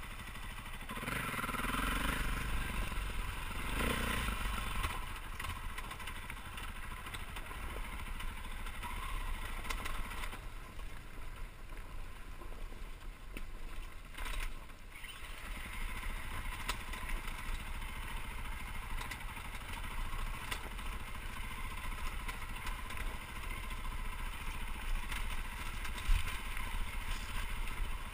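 Dirt bike engine running at low speed over a rocky trail, swelling louder twice in the first few seconds, with a single sharp knock near the end.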